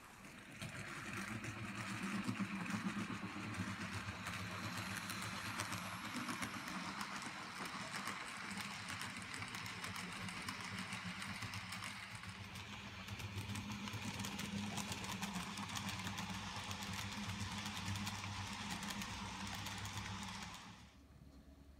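N gauge model trains running on the track: a steady whirr of small electric motors and wheels over the rails, with rapid fine clicking and a low hum. It starts about half a second in and cuts off suddenly near the end.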